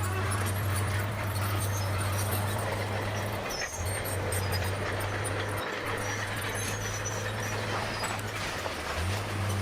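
Bulldozer's diesel engine running steadily under load, a deep hum with broad mechanical noise over it, dipping briefly a few times.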